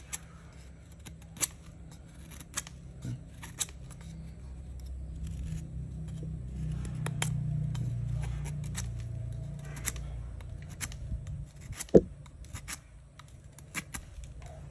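Freshly sharpened handmade Hmong knife (dao mèo) shaving slivers off a piece of wood: a run of short crisp cuts, with one louder sharp snap about twelve seconds in. A low rumble in the background swells and fades in the middle.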